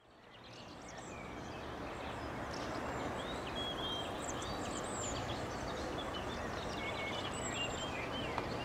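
Outdoor ambience fading in: a steady broad rush with a faint low hum, and songbirds chirping and whistling in short, sliding calls.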